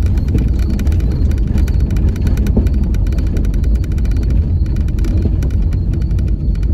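Car driving along a rough, potholed road, heard from inside the cabin: a steady low rumble of engine and tyres with many small rattles and knocks.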